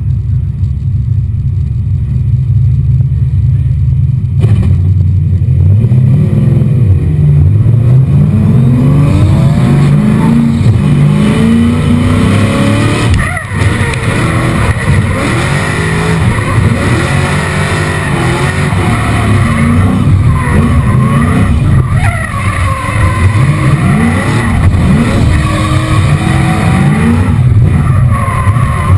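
Nissan S13's 7.0-litre GM LS7 V8 rumbling at low revs, then revved hard up and down again and again from about five seconds in as the car drifts, with tyres skidding and screeching.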